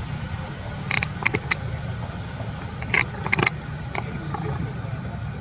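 Short sharp clicks and crackles in two clusters, about a second in and about three seconds in, over a steady low hum.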